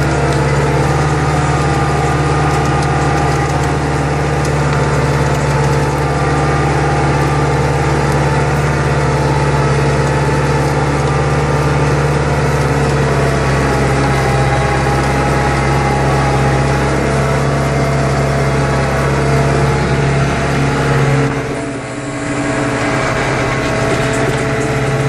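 Tractor diesel engine running steadily under load while pulling a reversible mouldboard plough, heard from the cab. The sound dips briefly for about a second near the end.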